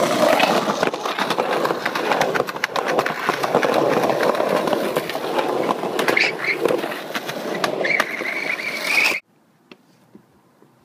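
Skateboard wheels rolling on a concrete sidewalk: a steady rolling rumble with many sharp clicks as the wheels cross the cracks in the pavement. It cuts off suddenly about nine seconds in, leaving near quiet.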